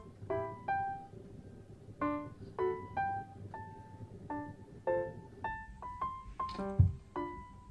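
Background music: a gentle melody of separate notes, a few per second, each one fading out.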